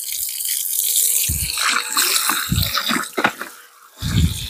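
Water from a garden hose splashing and pouring over leafy greens being rinsed in a plastic bucket, with a few dull knocks in between.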